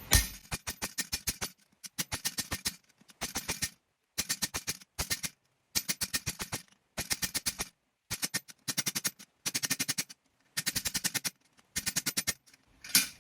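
Hammer striking hot steel bar on an anvil, drawing out a forged handle: quick runs of about seven ringing blows a second, broken by short pauses.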